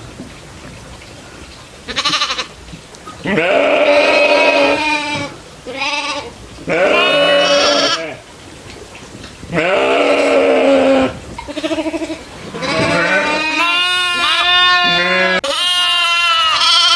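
Goats bleating, a run of about eight calls with short gaps between them. Near the end several calls overlap, each with a quavering tremble.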